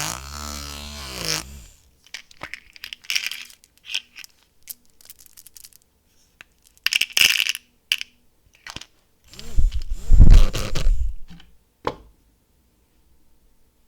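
Candy packaging being handled and unwrapped: plastic wrapper crinkling and tearing in short bursts, with small clicks and taps. A wavering pitched sound fades out in the first two seconds, and the loudest rustle-and-handling noise comes about ten seconds in.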